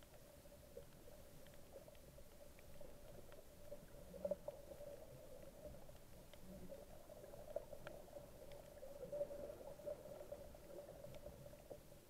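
Faint, muffled underwater sound picked up by a camera in its housing while snorkeling over a reef: a steady hum with scattered small clicks.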